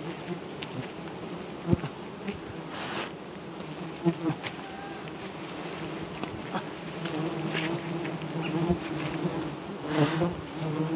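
A colony of wild honeybees buzzing steadily, disturbed as its comb is taken from a tree branch into a plastic bag; the hum grows louder in the last few seconds. Short crackles of the plastic bag and leaves come and go.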